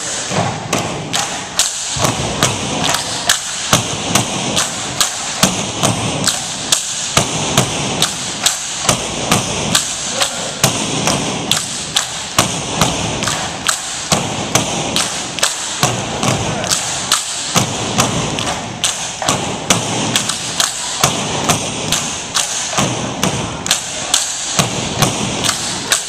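Tinikling poles knocked steadily against the gym floor and against each other, about two sharp knocks a second, keeping the beat for the dancers stepping between them.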